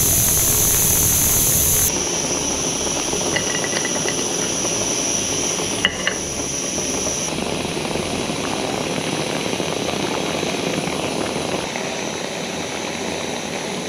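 MSR WhisperLite Universal stove burning canister gas fed upside-down at full flame under a kettle already at the boil: a steady hiss. About two seconds in, the canister valve is closed and the hiss drops, but the burner keeps burning and hissing more quietly.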